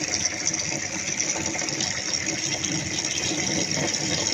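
Two taps running steadily, their streams of water splashing into a sink and onto a stainless steel strainer bowl.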